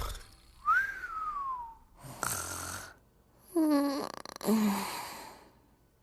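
Comic, exaggerated snoring. A whistling tone rises then falls, a rough breath follows, and then come two pitched, buzzing snores.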